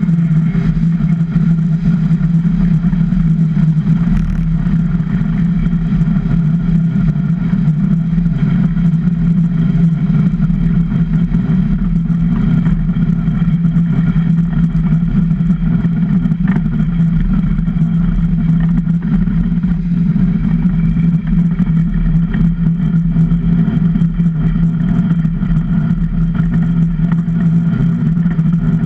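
Super DN ice boat's runners running over hard lake ice at speed, the rumble carried through the hull as a loud, steady hum with a strong low note.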